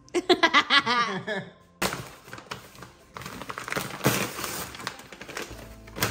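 A short burst of laughter, then a plastic-wrapped bag being handled and unwrapped: a busy rustling and crinkling with many small crackles.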